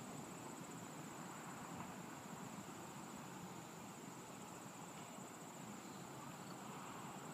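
Insects trilling in one steady high-pitched drone, over a low, even background rumble.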